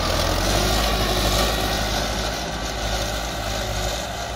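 Mahindra 595 DI Turbo tractor's turbocharged diesel engine running steadily under load as it pulls an 11-tine cultivator through the soil, growing fainter as it moves away.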